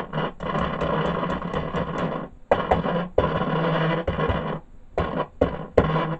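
Ekco MPT333 transistor radio playing through its loudspeaker: a loud, noisy, distorted output over a steady hum that cuts out and comes back abruptly several times. This is the sign of the fault the set has.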